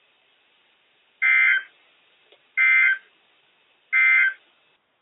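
NOAA Weather Radio's SAME end-of-message data burst, sent three times: three short, buzzy two-tone digital squawks about 1.4 s apart, marking the end of the broadcast alert.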